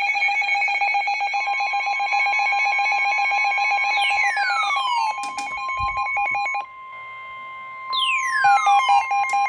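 Synthesized electronic alert tones. A rapidly pulsing beep sounds under steady higher tones, with a steady tone joining about a second in. A falling whistle-like sweep comes about four seconds in and again near the end, with a short quieter stretch around seven seconds.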